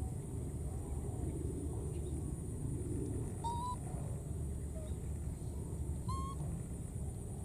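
Baby macaques giving short, high-pitched coo calls, one about halfway through and a second near the end, over a steady low background rumble.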